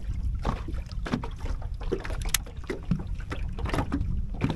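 Wind rumbling on the microphone while small waves slap against the boat's hull in short, irregular splashes, with one sharp click about halfway through.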